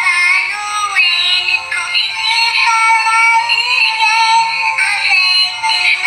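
Musical Christmas greeting card's sound chip playing a tinny electronic tune through its tiny speaker, thin with almost no bass, after the card is opened.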